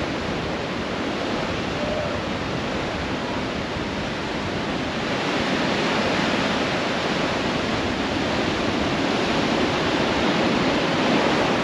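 Ocean surf breaking and washing up the beach: a steady rush of waves that grows a little louder in the second half.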